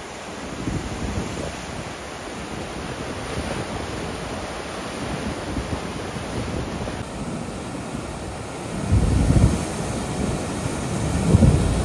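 Sea surf breaking and washing over coastal rocks: a steady rushing wash of water. Wind buffets the microphone in two louder low gusts near the end.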